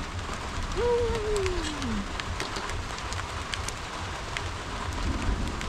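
Outdoor background noise: a steady hiss with a low rumble of wind on the microphone and scattered light clicks. About a second in, one short call slides down in pitch over about a second.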